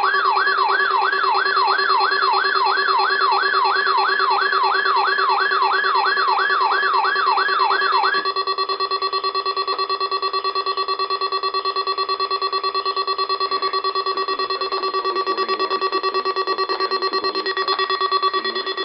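Eton weather radio's alert siren sounding on receiving a weekly test: quick rising sweeps, about two and a half a second, which about eight seconds in give way to a steady high alarm tone that holds. The radio was left in siren mode rather than voice mode.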